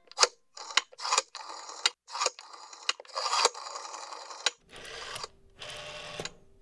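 Rotary telephone dial being turned and whirring back, a string of sharp mechanical clicks and short clicking rattles, repeated several times as a number is dialled.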